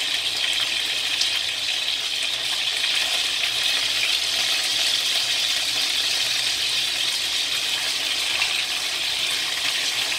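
Chicken wings and garlic cloves frying in hot oil in a wok, sizzling steadily, with a few faint ticks as they are turned with a wooden spatula.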